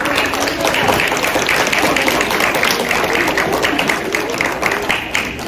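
Audience of schoolchildren applauding, a dense patter of many hands clapping that eases off near the end.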